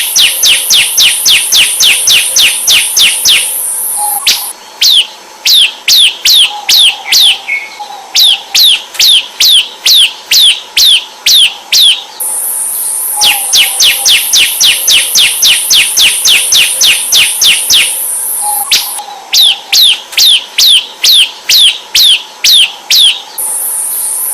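Bar-winged prinias (ciblek) calling in a looped lure recording: fast series of sharp, downward-sweeping chirps, about four to five a second, in bursts of several seconds with short breaks. In some stretches a steady, very high-pitched buzz runs under the chirps.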